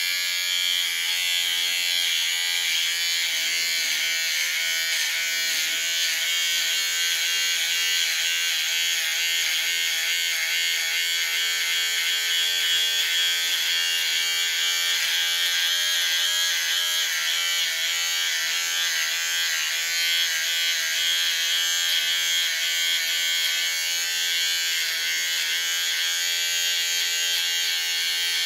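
Electric shaver buzzing steadily as it cuts through beard hair, its pitch wavering slightly as it moves over the face.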